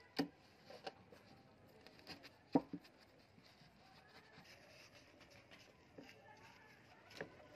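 Scattered light clicks and knocks from a rusty steel hammer head being handled and turned over in the hands, with one sharper knock about two and a half seconds in.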